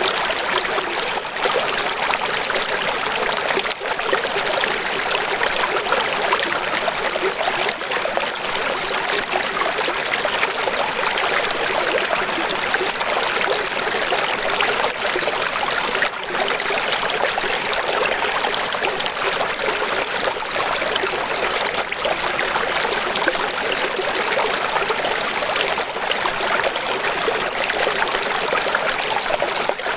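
Running water flowing and splashing steadily, a dense even rush with little low rumble.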